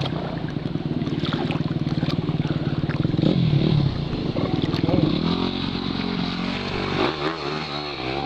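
Yamaha YZ dirt bike engine running at steady revs, then revving up and down repeatedly in the last few seconds as the bike churns through water.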